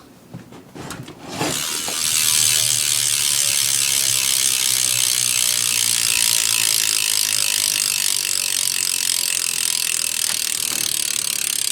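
Sapient BMX rear hub freewheeling as the back wheel spins: a few clicks, then from about a second in a fast, steady buzz of pawl clicks.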